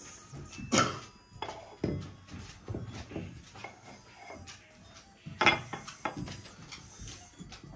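A person blowing out birthday candles: a short, hard puff of breath about five and a half seconds in, the loudest sound here, with a similar burst near the start and small clatter at the table.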